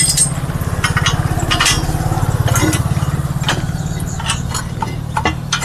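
A small engine running steadily at idle, with light metallic clinks of metal parts being handled.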